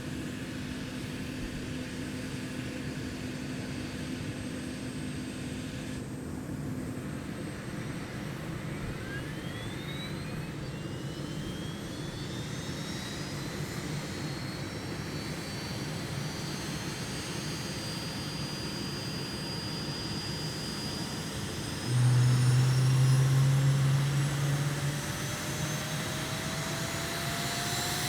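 Helicopter engine starting up: steady engine noise with whines that rise slowly in pitch as it spools up, and a louder low drone for about three seconds near the end.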